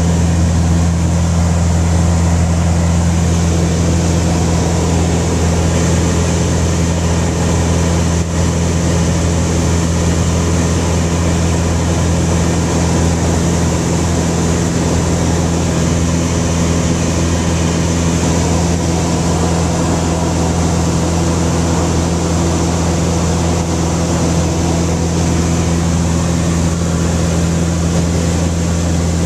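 Light propeller plane's piston engine and propeller running at a steady cruise, heard inside the cockpit as an unchanging low drone with a hiss of airflow over it.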